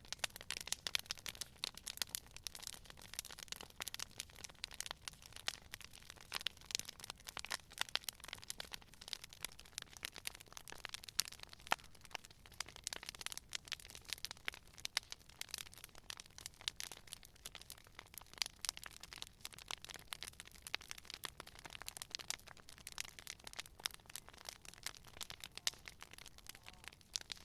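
Campfire crackling: a dense, irregular stream of small pops and snaps from burning wood, several a second, with now and then a sharper, louder pop.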